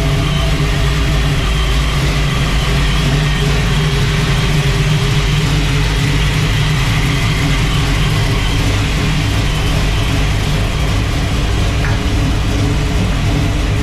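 Classic car with a custom-built dual exhaust, its engine running at a steady speed with a deep, even exhaust note.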